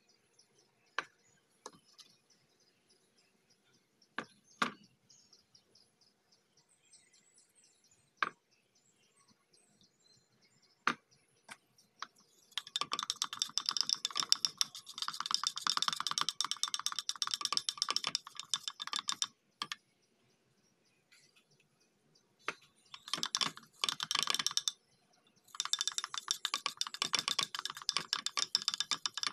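A paintbrush stirring thick paint in a glass jar: a rapid, dense clatter of taps against the glass in three stretches, the first starting about twelve seconds in, after a few scattered knocks.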